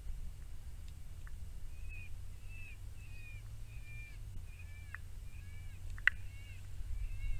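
Electronic predator caller playing a prey distress sound: a run of short, slightly falling squeaks, about two a second, over a steady low rumble, with a sharp click about six seconds in.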